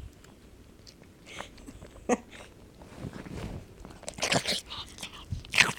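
Mixed-breed dog chewing and crunching her food, with irregular sharp crunches: one about two seconds in, a cluster around four seconds, and a loud one near the end.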